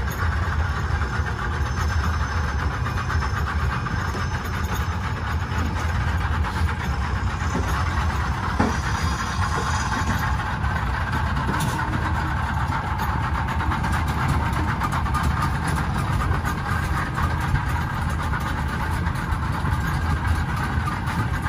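Twin outboard motors idling steadily, with a couple of faint knocks partway through.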